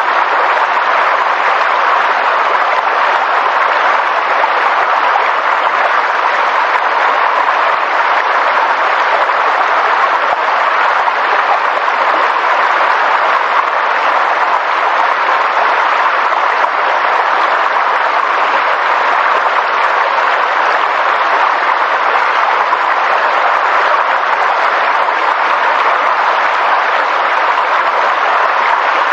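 Steady, dense rushing noise of a nature ambience, even throughout, with no separate events or tones.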